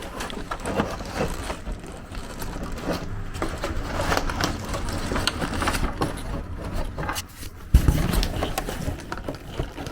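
Hand-handling noise of a car's plastic interior trim cover being worked and pushed into place: scraping and irregular small clicks and knocks, with one heavy thump about eight seconds in.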